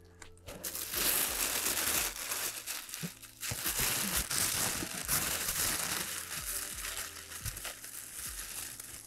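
Thin tissue wrapping paper rustling and crinkling as hands unfold and pull it back, in two long stretches with a short pause about three seconds in, getting softer toward the end.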